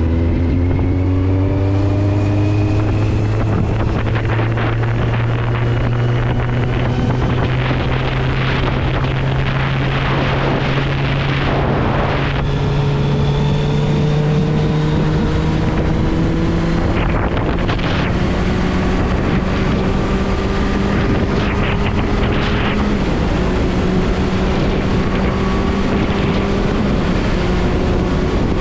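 Kawasaki Z750 inline-four motorcycle engine under way, its note rising in pitch over the first few seconds and then holding fairly steady with a few small jumps, mixed with wind rushing over a helmet-mounted camera.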